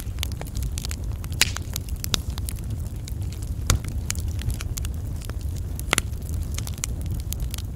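Wood fire burning: a steady low rumble of flames under frequent sharp crackles and pops, a few of them louder than the rest.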